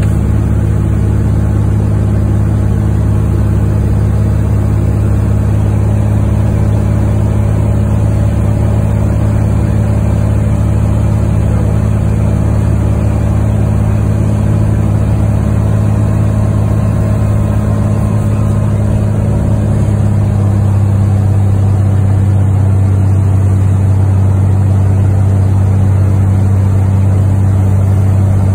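Single-engine Cessna's piston engine and propeller running steadily, heard from inside the cockpit as a loud low hum. The hum grows a little louder about two-thirds of the way through.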